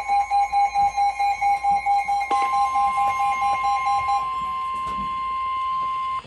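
NOAA Weather Radio warning alarm tone: one steady, unbroken tone that steps louder about two seconds in and cuts off suddenly just before the end. A receiver's alert beeps rapidly over it, about four beeps a second, until about four seconds in. Together they signal a severe thunderstorm warning.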